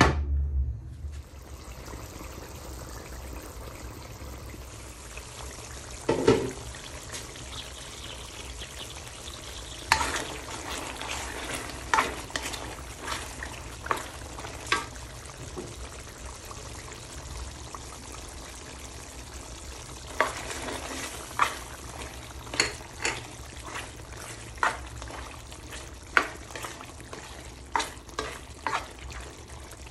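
Pork and coconut milk simmering and sizzling in a stainless steel wok, with a clunk at the start as the glass lid is handled. A spatula then stirs the thick sauce, knocking and scraping against the pan in sharp clicks that come in bunches.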